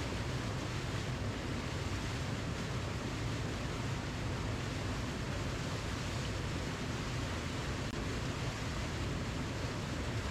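Waterfall: water falling steadily in an even, unbroken rush with no distinct splashes or changes.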